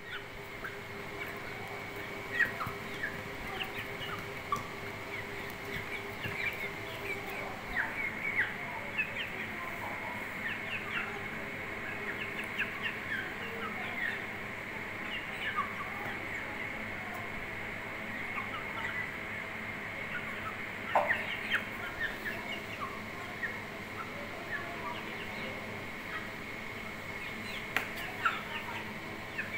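Aseel hens and chicks feeding, with frequent short chirps and clucks throughout and a few sharp clicks.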